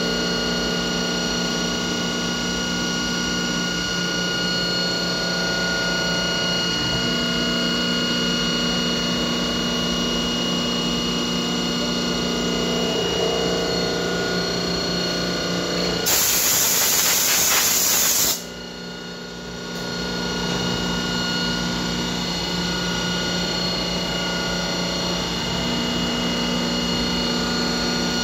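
CNC machining center spindle running with a steady, multi-toned whine as an end mill cuts a white plastic block. About two-thirds of the way through a loud hiss lasts a couple of seconds, then the machine goes quieter for a moment before the cutting sound builds back up.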